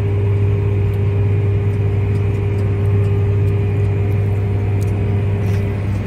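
Farm tractor running steadily under load while pulling a seed drill, heard inside the closed cab: an even low drone with a constant whine above it.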